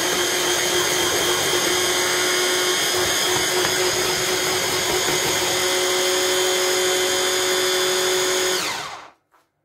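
Electric kitchen blender running steadily, puréeing bananas with yogurt into a banana cream. Near the end it is switched off and its whine falls in pitch as the motor spins down to a stop.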